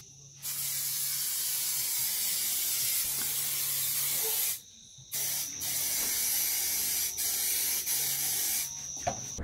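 Aerosol spray can of automotive touch-up paint hissing in two long sprays, with a short pause about halfway through.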